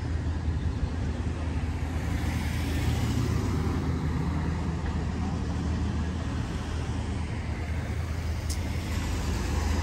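Road traffic: vehicles passing by, a steady low rumble with the hiss of tyres swelling a few seconds in and again near the end.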